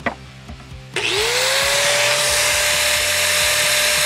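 Corded angle grinder switched on about a second in, its motor whine rising quickly and settling to a steady pitch as the disc spins freely with no load.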